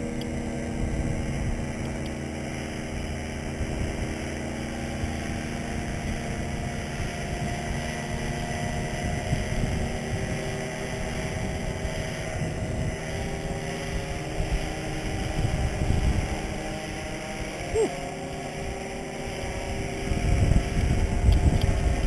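Paramotor engine idling steadily, with gusts of wind noise on the microphone that grow strongest near the end.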